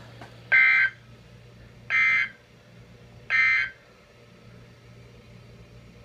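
NOAA Weather Radio sending the SAME end-of-message code: three short two-tone digital data bursts, each about a third of a second long and about a second and a half apart. They mark the end of the warning broadcast.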